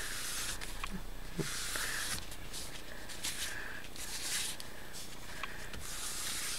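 Black ink pad dabbed and rubbed across paper over dried texture paste, a soft scratchy swish with each stroke, several strokes about a second apart.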